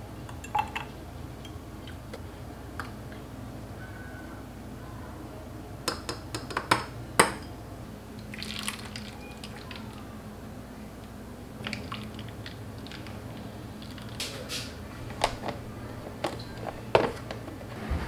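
Making iced coffee by hand: milk poured over coffee ice cubes in a glass, then coffee poured into a plastic ice cube tray, with scattered clinks and knocks of glass and dishes. A steady low hum runs underneath.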